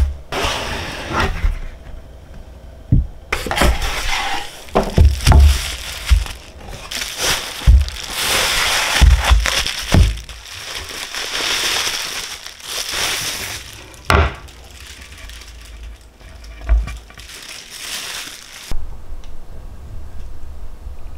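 Kitchen handling sounds: crackling, crinkling noise with many short knocks and clinks, busiest in the middle and dying down near the end.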